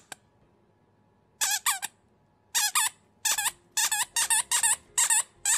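A rubber squeaky toy squeezed in a dog's mouth: one squeak at the start, then short squeaks in quick pairs from about a second and a half in, coming faster toward the end.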